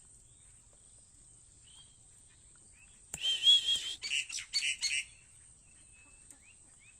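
White-breasted waterhen calling: a burst of harsh, wavering notes about three seconds in, ending in a few short separate notes, lasting about two seconds. A steady thin high-pitched hiss and faint scattered chirps run underneath.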